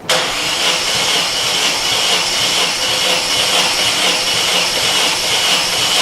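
Vauxhall Corsa VXR's four-cylinder engine cranking over on the starter motor during a compression test, with a pressure transducer fitted in cylinder 2. The cranking starts abruptly and keeps up at a steady level.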